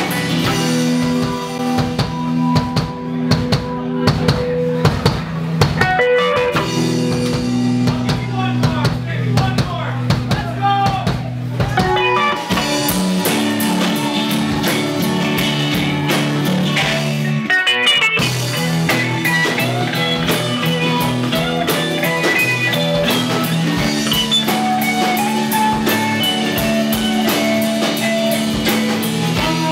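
Live rock band playing: electric and acoustic guitars over bass and a drum kit, with steady drum hits throughout.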